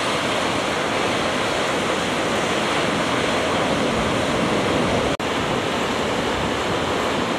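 Heavy Atlantic surf breaking and churning over volcanic rocks: a steady, dense rush of waves. It cuts out for an instant about five seconds in.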